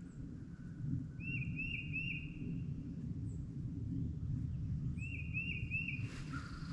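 A songbird sings a phrase of three quick, repeated whistled notes twice, about a second in and again near five seconds, over steady low background noise. A rustling hiss starts near the end.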